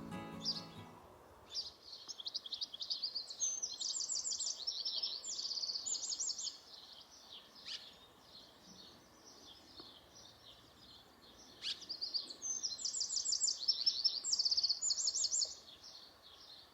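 A songbird singing two long songs of rapid, high warbling notes, each about five seconds long, with a pause of several seconds between them.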